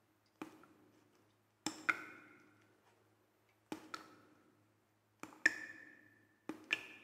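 Sparse struck percussion, like a wood block: single and paired knocks every second or two, each ringing briefly with a pitched tone before dying away.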